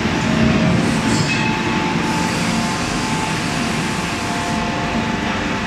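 Steady drone of forging-shop machinery, with a few faint whining tones running through it and one faint clank about a second in; no hammer blows.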